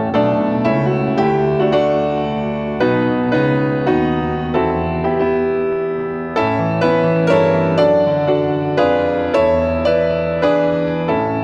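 Solo piano playing slow chords, each struck and left to ring before the next.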